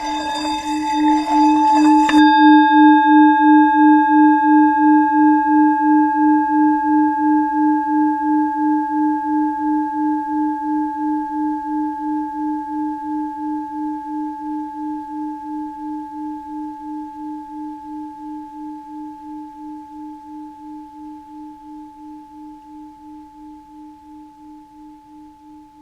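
Tibetan singing bowl ringing with one low, pulsing tone and fainter higher overtones. A scraping sound over the tone swells for about the first two seconds and then stops abruptly, and the bowl rings on, slowly fading.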